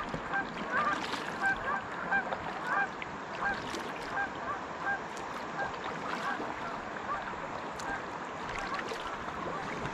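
Canada geese honking, a long string of short calls at about one to two a second that grow fainter after about seven seconds.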